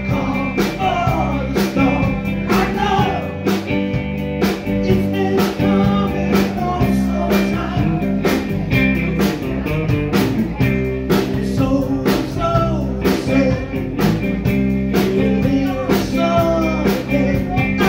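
Live band playing a rock song with a steady beat and electric guitars, a man singing lead into a microphone.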